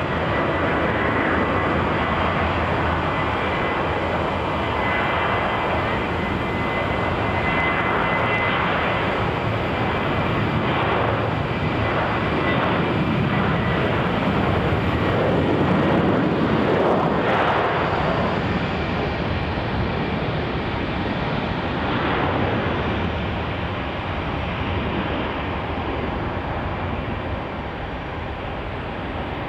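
Boeing 737-800's CFM56 jet engines running as the airliner rolls along the runway: a steady jet rush with a thin high whine in the first third. The sound sweeps in tone and swells to its loudest about halfway, then eases off.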